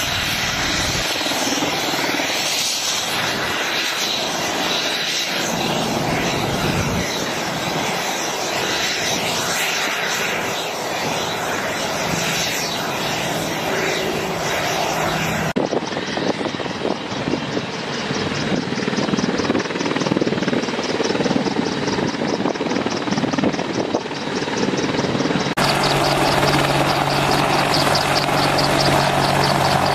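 AH-64E Apache helicopter's rotor and twin turboshaft engines running, first hovering low, then on the runway, with a rhythmic rotor beat. The sound changes abruptly twice, and a steady turbine whine stands out in the last few seconds.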